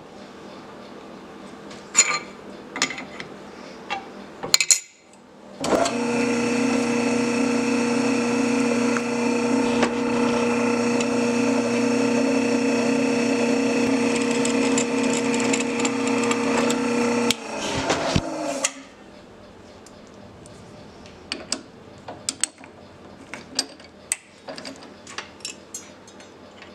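Drill press switched on and running steadily for about twelve seconds, a steady motor hum with a whine above it, as a twist drill bores through a metal fixture plate; it is then switched off and its tone falls as it winds down. Light clicks and knocks of the plate and tools being handled come before and after.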